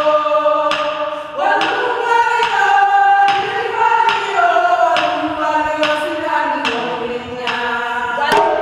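Group of voices singing long held notes over a steady beat on hand drums.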